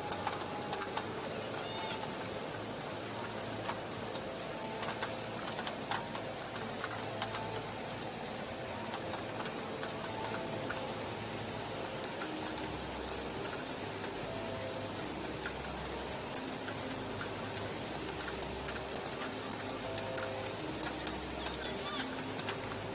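Steady rush of fast-flowing floodwater surging through a street, with faint voices underneath.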